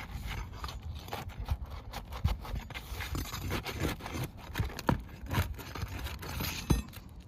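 Metal tool scraping and clicking under an asphalt roof shingle as its nails are worked loose, in irregular short strokes with a couple of sharper knocks near the end.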